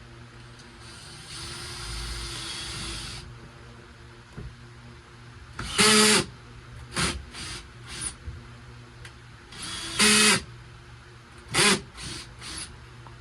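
Power drill run in short trigger bursts, most likely driving screws: a softer steady whir early on, then two loud half-second runs about six and ten seconds in, with several shorter blips between and after.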